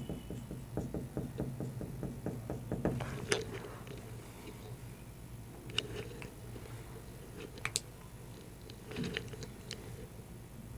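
Marker pen writing on a whiteboard: a quick run of short strokes over the first three seconds, then a few separate sharp clicks and taps, over a steady low hum.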